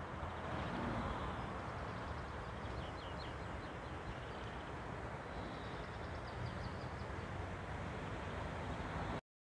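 Outdoor ambience: a steady low background hum with small birds chirping briefly several times. The sound cuts off abruptly near the end.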